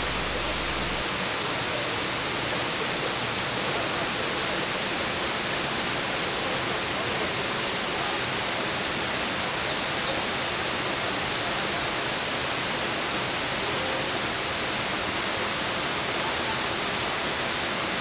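Waterfall rushing: a steady, unbroken roar of falling water.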